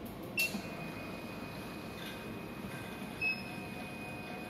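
A click, then the BS-3000P photometer's peristaltic pump running on its wash cycle: a thin, steady high whine as it draws wash water through the tubing.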